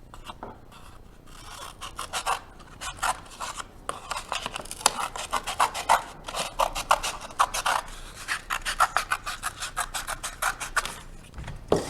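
Scissors cutting through a paper plate: a long run of quick rasping snips, coming faster and steadier from about four seconds in.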